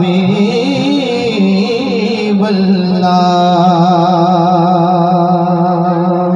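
A man singing a naat with a drawn-out ornamented phrase that glides up and down, then holding one long wavering note from about three seconds in, over a steady low drone.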